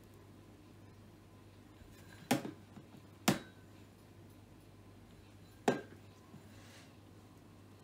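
A cat's food bowl being knocked about as a cat eats from it: three sharp knocks, a clunk then a clink, the second and third a couple of seconds apart, each with a short ring.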